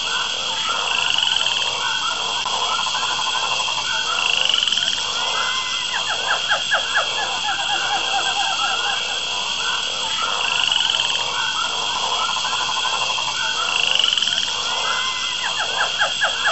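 Frogs croaking in a dense chorus over a steady high hum. A rising call comes every few seconds, and twice there is a run of rapid pulsed croaks.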